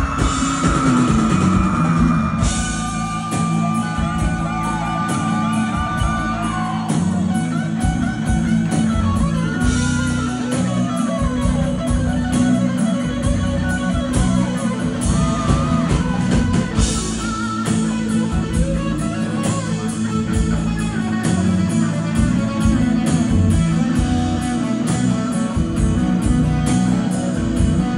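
Live rock band playing an instrumental passage: electric lead guitar with bent, gliding notes over drum kit and bass.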